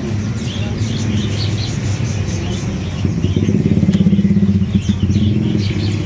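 A vehicle engine running close by, swelling and pulsing from about three seconds in, with small caged songbirds chirping throughout.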